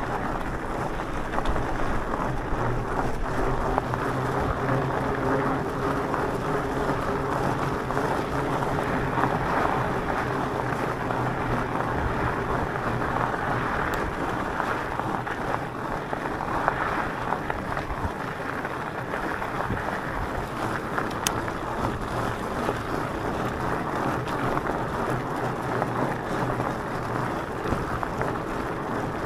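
Electric mountain bike riding along a gravel track: a steady rush of tyre and wind noise with a faint, even hum underneath.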